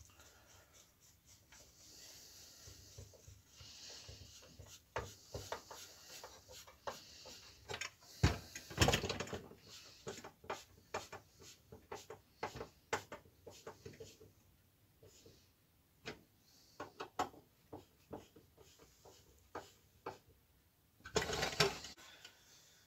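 Screwdriver driving small screws into the metal body of a Salter parcel scale, with scattered metallic clicks, scrapes and light knocks as the scale parts are handled. A louder clatter comes about nine seconds in, and another near the end as the scale body is turned over on the bench.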